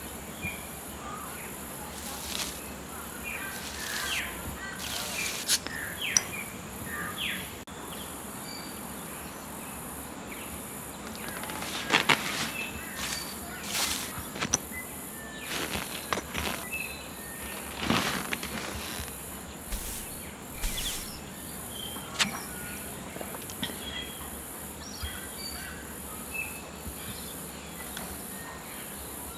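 Outdoor garden ambience: a steady high insect buzz pulsing about once a second, with scattered bird chirps. Several short sharp sounds stand out above it, loudest about five to six seconds in and again about twelve seconds in.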